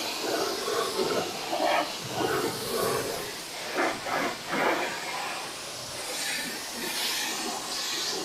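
Pressure-washer spray hissing as it rinses degreaser off an engine bay, water spattering against the engine and the underside of the hood. The rush swells and fades as the nozzle sweeps across different surfaces, loudest in a few passes around the middle.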